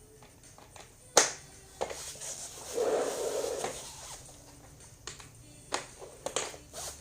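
Hard plastic clicks and knocks as castor wheels are pushed into the legs of a baby crib's pedestal frame. A sharp snap comes about a second in, a short rubbing scrape follows around three seconds in, and a few lighter clicks come near the end.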